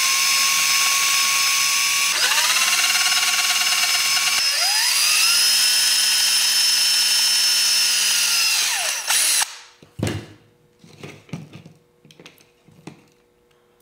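Power drill boring through a black plastic mounting plate: the motor whines steadily, its pitch dipping and climbing back twice, then it spins down about nine seconds in. Faint clicks of the plastic part being handled follow.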